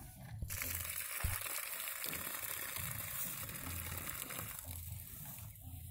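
A cow urinating, a steady stream splashing onto dry straw and ground. It starts about half a second in and tapers off near the end.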